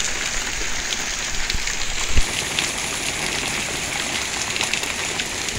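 Hailstorm: a dense, steady patter of hailstones hitting the ground and patio, with one louder thump about two seconds in.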